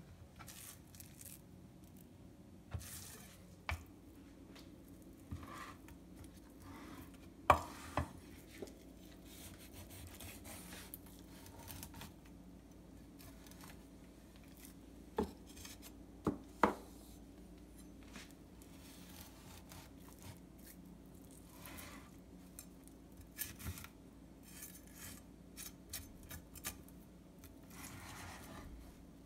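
Kitchen knife filleting a whole morwong on a wooden chopping board: quiet scraping and cutting through the fish, broken by a few sharp knocks, the loudest about a quarter of the way in and three more a little past halfway.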